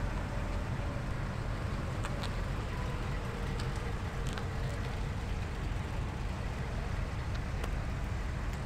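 Slow-moving classic cars driving past at low speed, their engines running with a steady low rumble and a few small clicks.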